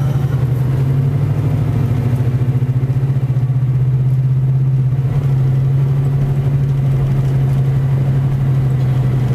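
Car engine and road noise heard from inside the cabin while driving, a steady low drone with a faint pulsing in its first few seconds.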